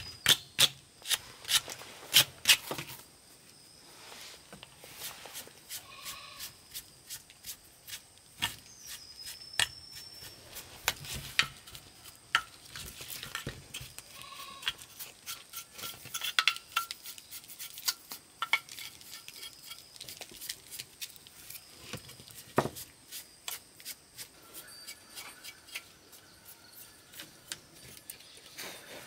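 Irregular sharp clinks and taps of hand-tool work, coming thick and fast for the first few seconds, then scattered.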